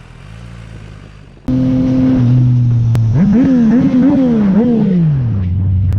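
Motorcycle engine idling, then revved up and down four times in quick succession before dropping back to idle. A quieter engine hum before it cuts off abruptly about a second and a half in.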